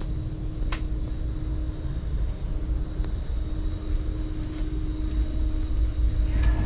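Interior of an Avanti West Coast Class 390 Pendolino electric train running on its approach into the terminus: a steady low rumble with a steady hum, and a few sharp clicks.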